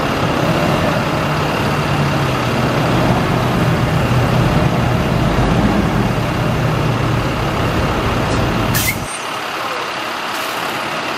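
Caterpillar C9 diesel engine of a water truck running steadily while it drives the PTO water pump and the spray nozzle shoots water. About nine seconds in the engine's low hum drops away with a short hiss of air as the spray shuts off.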